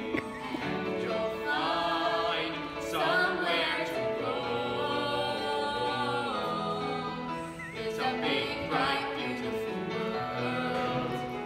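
Singing from a stage musical number, with sung phrases carried over an instrumental accompaniment.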